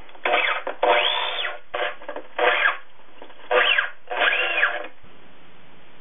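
Skil drill driving 2½-inch stainless steel screws into redwood in about six short runs, its motor pitch rising and falling within each run as the screws are driven home. The drilling stops about five seconds in.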